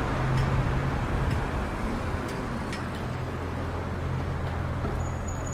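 Street traffic ambience: a steady low engine hum under a wash of road noise, with a few faint ticks. A thin high-pitched whine starts near the end.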